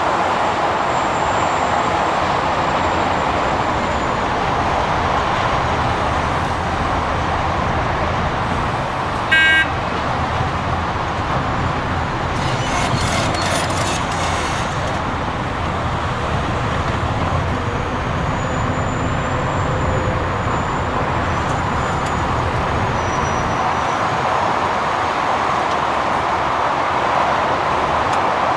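Steady rumble of heavy diesel machinery and motorway traffic as a Hitachi Zaxis 500LC excavator loads a dump truck, with one short horn toot about ten seconds in and a brief spell of rattling a few seconds later.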